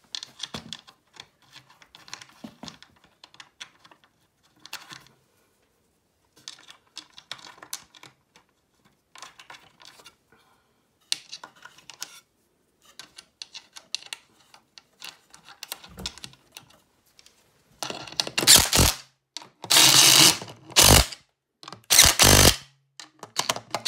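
Small metal clicks and rattles as nuts and washers are handled and threaded by hand onto carriage bolts. Then, in the last few seconds, a cordless power driver with a socket runs in several short, loud bursts, spinning lock nuts down tight.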